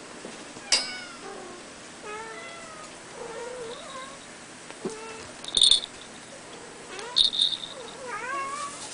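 Ruddy Abyssinian kitten meowing, a string of short calls that bend in pitch. A sharp click about a second in and two loud high-pitched jingling or clicking bursts in the middle and later part are the loudest sounds.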